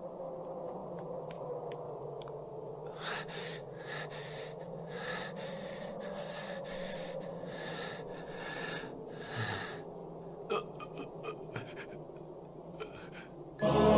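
A wounded man panting heavily, about one breath a second, over a low steady drone with a slowly falling tone. A few short clicks follow, and music comes in loudly right at the end.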